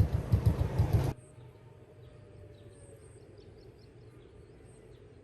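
Restored D6 diesel engine running with an even beat of about five pulses a second, cut off abruptly about a second in. After that only a faint hiss with a few light high chirps remains.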